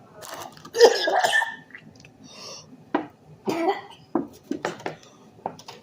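A person coughing from the burn of an extremely hot chili chip: one long harsh cough about a second in, then a string of short coughs.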